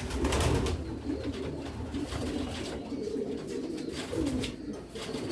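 Pigeons cooing, several low coos following and overlapping one another, with a few short clicks among them.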